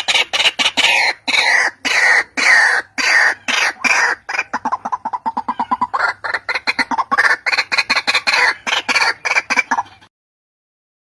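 White-breasted waterhen (ruak-ruak) calling: a fast string of harsh, clucking notes, with longer notes that fall in pitch partway through. It cuts off suddenly about ten seconds in.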